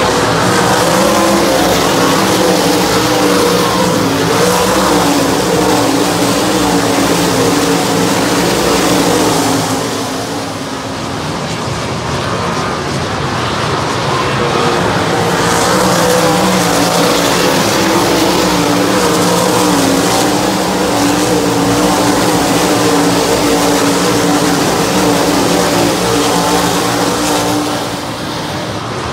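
A field of 410 sprint cars racing on a dirt oval, their 410-cubic-inch methanol V8 engines rising and falling in pitch as the cars come round and pass. The sound eases about ten seconds in and again near the end, then swells back as the pack returns.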